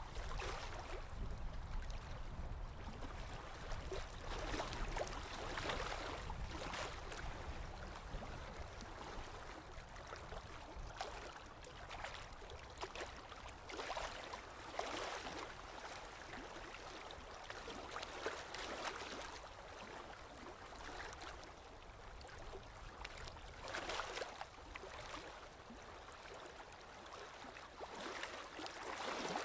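Moving water lapping and gurgling, swelling and fading every few seconds, over a low, steady rumble.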